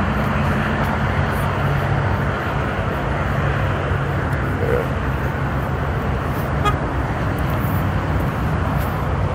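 Steady traffic and vehicle noise with a constant low engine-like hum.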